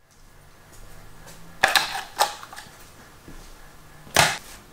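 Hand tools being handled at a workbench: a few sharp clicks and knocks of metal tools picked up and set down, the loudest about four seconds in.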